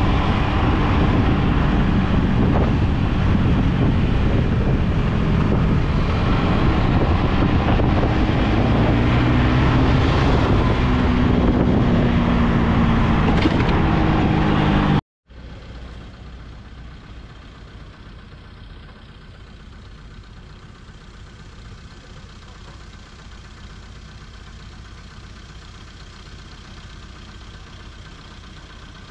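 Motorbike engine running on the move, its pitch rising and falling with the throttle, under a rushing haze of wind and road noise. It cuts off suddenly about halfway, and a much quieter, steady low rumble follows.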